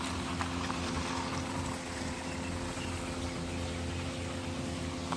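Steady mechanical hum at an unchanging pitch over a low rumble, with a few faint clicks.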